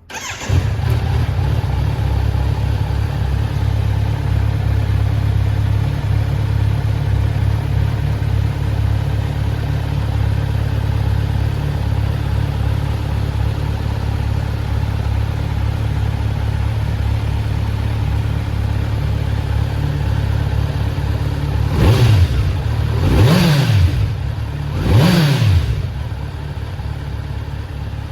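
Kawasaki Z900 SE's inline-four engine, breathing through an Akrapovič slip-on silencer, starts up and settles into a steady idle. Near the end it is revved three times in short blips before dropping back to idle.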